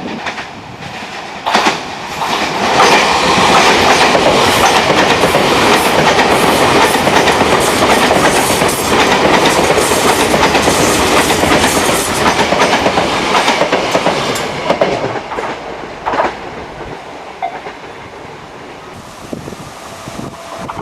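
A train passing close by, its wheels clacking rapidly over the rail joints. It grows loud about two seconds in and fades away after about fifteen seconds.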